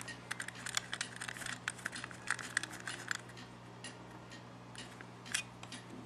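Small plastic and metal clicks and rattles of a serial cable plug being pushed onto and handled against a Keyspan USB-to-serial adapter, many quick clicks in the first three seconds, fewer after.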